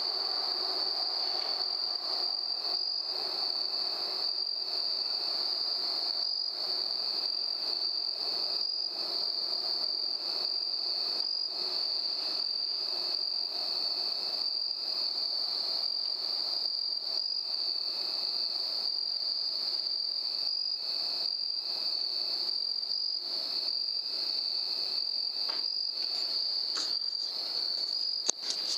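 Crickets chirring in a steady, high-pitched night chorus, with a brief sharp knock near the end.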